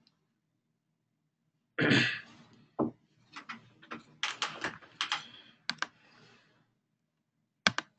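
A thump about two seconds in, then computer keyboard typing: a run of uneven key clicks, and one sharp click near the end.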